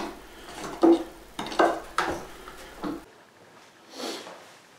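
Repeated strokes of a hand tool working the wood of a guitar neck, smoothing the heel and headstock transitions: about five strokes in the first three seconds, then one quieter stroke about four seconds in.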